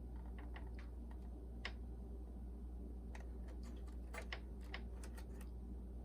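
Light, scattered clicks and taps of small plastic parts being handled: a wiring connector and the boombox's plastic chassis, with a cluster of clicks about two-thirds of the way in. A steady low hum runs underneath.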